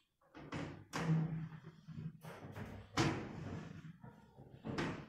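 A few sharp thuds and taps, the loudest about one second and three seconds in, from a plastic feeding syringe and its container being handled.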